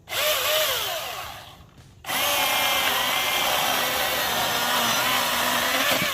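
Milwaukee cordless battery chainsaw: the electric motor and chain whir up in a short burst that winds down. About two seconds in it starts again and runs steadily for about four seconds, ripping through its first cut in a log.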